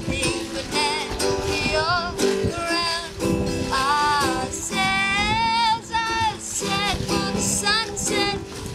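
A boy singing, with a wavering vibrato on held notes, while strumming chords on an acoustic guitar.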